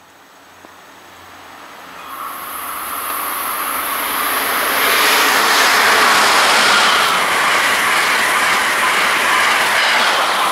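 Amtrak Acela Express electric trainset approaching at speed and passing close by: a rush of wheels on rail that builds steadily and is loudest about five to seven seconds in.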